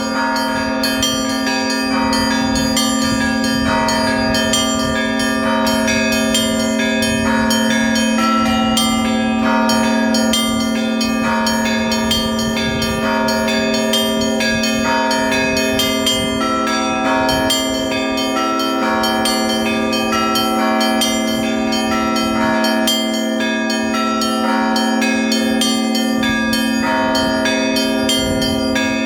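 Russian Orthodox church bells in festive ringing: many small and middle bells struck in quick, interlocking patterns over a deep bell ringing on underneath.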